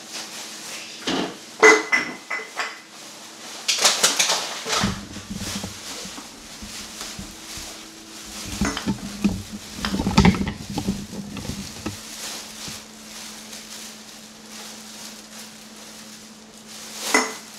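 Kitchen dishes and utensils clinking and knocking as they are handled: scattered sharp clinks, busiest about four seconds in and again from about nine to twelve seconds, over a faint steady hum.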